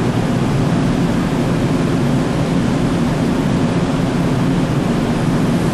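Steady low drone with a hiss, from the anchored ship's machinery, holding at an even level.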